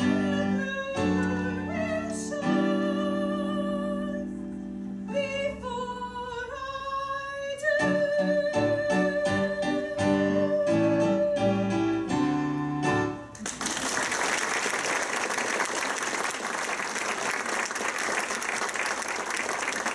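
A show tune ends: a singer holds a long, wavering final note over the instrumental accompaniment. The music stops about 13 seconds in and the audience applauds.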